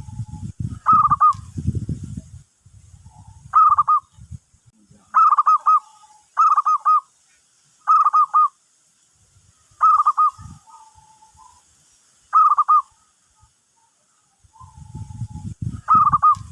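Zebra dove (perkutut) calling: about eight short bouts of quick, rippling coo notes, one every second or two. A low rumbling noise sits under the calls at the start and again near the end.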